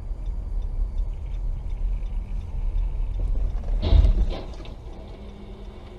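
Car interior road and engine rumble, then a loud sudden bang about four seconds in with a second knock half a second after it: a vehicle collision. The rumble settles quieter afterwards.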